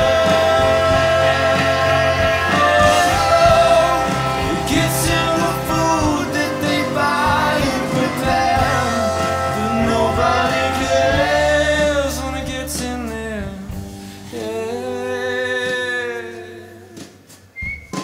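Live band music: hollow-body electric guitar and drums under a wordless, gliding melody line. The band thins out over the last few seconds, and a brief high whistled note comes in at the very end.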